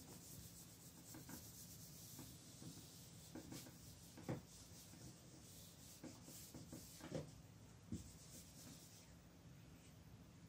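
Whiteboard eraser rubbing across a whiteboard, wiping off marker writing in faint repeated strokes, with a few soft knocks.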